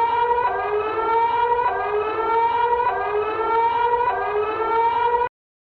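Emergency-alert siren tone: a buzzy chord of several tones that rises slightly over about a second, drops back and repeats at an even pace, then cuts off suddenly near the end.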